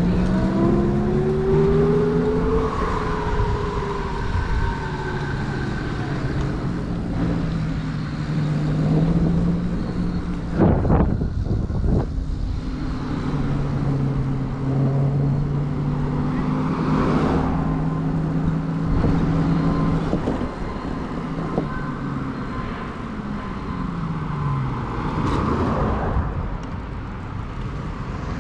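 Huck Cycles Stinger 3000 electric moped's motor whining under way: its pitch rises as it speeds up in the first few seconds, holds steady while cruising, then falls as it slows, with a steady rumble of road and wind noise underneath and a few brief louder swells.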